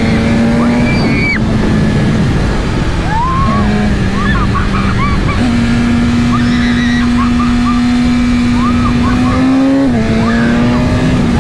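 BMW S1000RR inline-four sportbike engine running at speed with heavy wind noise; its note holds steady in stretches, changes pitch in steps, and drops sharply once near the end.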